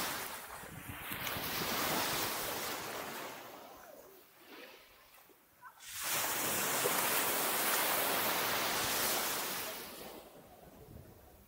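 Small sea waves breaking and washing up onto a sandy shore, in two swells: one near the start that ebbs away, and a second that rises suddenly about halfway through, holds for a few seconds, then fades.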